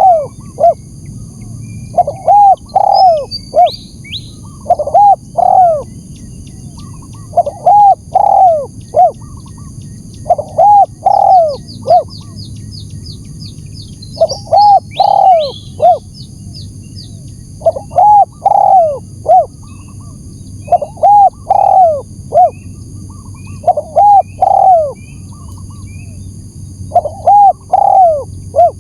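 Spotted dove (tekukur) cooing its repeated three-to-four-note call, one phrase every two to three seconds, played as a lure call to draw in wild doves. Small birds chirp higher up at times.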